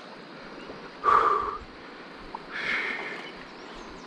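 Two short, loud, wordless vocal sounds from a man straining to hold a big fish on a fly rod, the first and louder one about a second in, the second about two and a half seconds in, over a steady hiss of river and wind.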